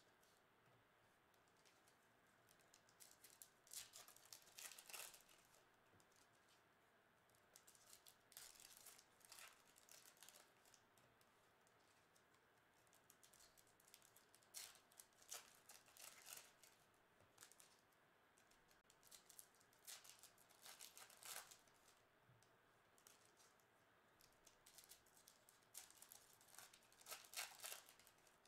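Foil trading-card pack wrappers crinkling and tearing as they are opened by hand, in short bursts every five or six seconds. It is quiet in between.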